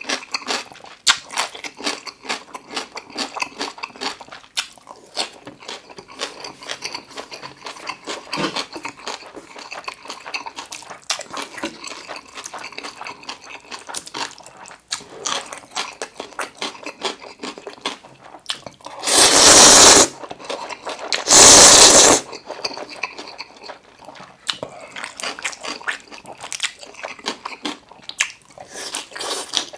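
Close-miked eating: steady chewing with wet smacks and crunches of gimbap and kimchi, and two loud, long slurps of curry ramen noodles a little past the middle, the loudest sounds.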